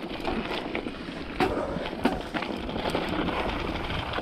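Mountain bike rolling over a rough dirt trail: steady tyre and ride noise with frequent irregular knocks and rattles from the bike, and wind buffeting the microphone.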